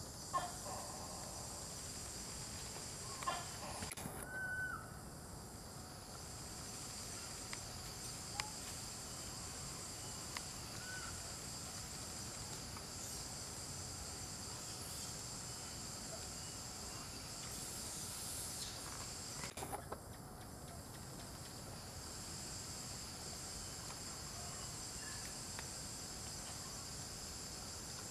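Steady high-pitched insect chorus in several layered bands, with a few short chirps and scattered brief clicks.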